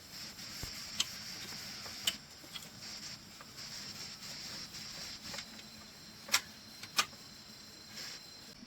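Bamboo knocking and clicking as the pieces of a handmade bamboo cabinet are handled: a few sharp taps, the loudest two about six and seven seconds in. Between them a scratchy rubbing hiss comes and goes.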